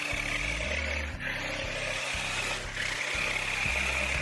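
Electric drive motors of a Bezgar TD205 mecanum-wheel remote-control car whirring as it runs its demo mode. The whine swells and fades as the car changes direction.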